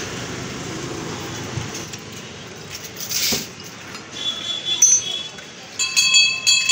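Metallic clinking with a ringing tone, metal striking metal several times a second, starting about four seconds in and growing busier near the end. Before it there is a steady background noise and a brief hiss about three seconds in.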